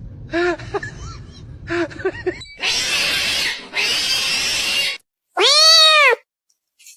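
Domestic cat vocalising: a few short chirping mews, then two long hiss-like noises about a second each, then one long, clear meow that rises and falls in pitch.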